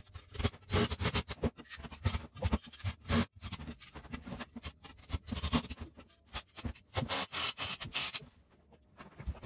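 Irregular scraping, scratching and knocking of things being handled and moved about in a small room.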